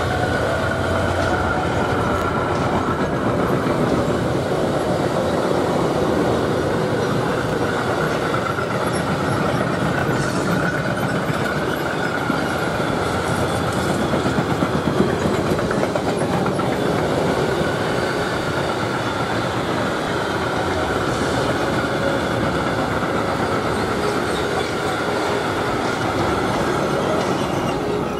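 Mixed freight train of car-carrier, covered and tank wagons rolling past at speed, with a steady rumble and clatter of wheels on rail.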